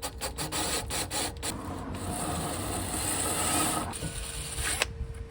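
Wire brush scrubbing the steel brake carrier where the pads sit, cleaning it for new pads: a run of short separate strokes, then a couple of seconds of fast continuous scrubbing that stops about four seconds in.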